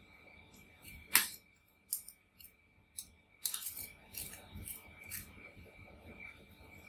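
Metal spatulas scraping and tapping on a sheet of frozen Oreo ice cream and the steel cold plate of a rolled-ice-cream pan. A string of sharp metallic clicks and short scrapes, with the sharpest click about a second in and a quick cluster a little past halfway.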